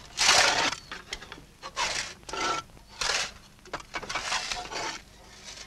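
Pipe-bed shovel scraping through sand along a wooden template frame, shaping a trench bed for a water main. It comes as a series of about six scraping strokes, the first the loudest.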